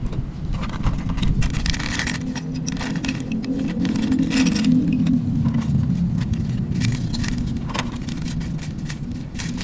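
Clear plastic parts bag crinkling and paper instruction sheets rustling as they are handled, in short irregular crackles over a steady low hum.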